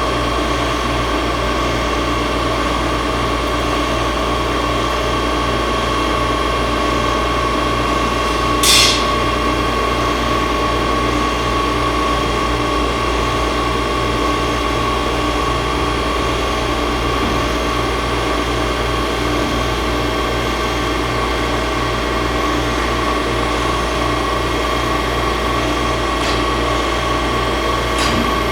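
5-axis CNC milling machine running steadily, its spindle giving a constant high whine over a low hum, with one short hiss about nine seconds in.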